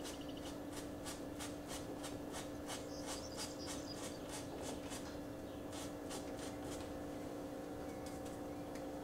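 Paintbrush dabbing and flicking acrylic paint onto a canvas in short, scratchy strokes, about three a second, thinning out after about five seconds, over a steady low hum.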